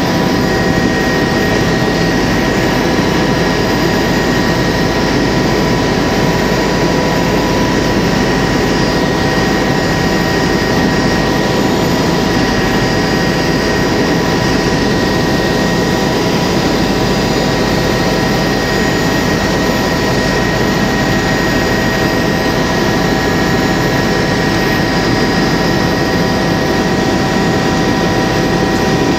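Helicopter in flight heard from inside the cabin: steady engine and rotor drone with a constant high whine over it.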